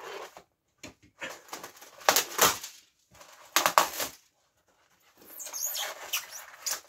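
A cardboard box and its packing being handled, rustling and scraping in several short bursts as the contents are worked out of it.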